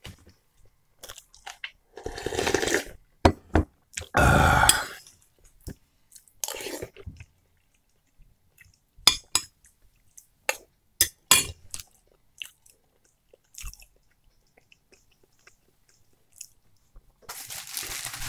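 Close-up eating sounds of a man eating borscht from a metal spoon: chewing and mouth noises in short irregular bursts, the loudest about four seconds in, with a run of sharp clicks a little past the middle.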